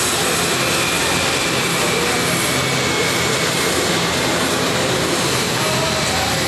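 Wide-body jet airliner's turbofan engines running as it taxis slowly past: a steady rush of noise with a faint high whine.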